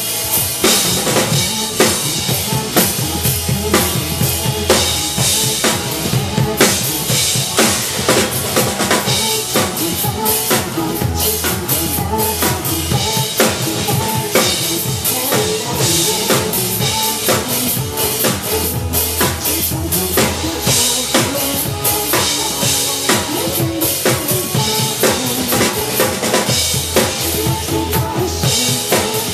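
Drum kit played hard and fast, with kick, snare and cymbal hits in a dense steady groove, over backing music whose bass holds long low notes.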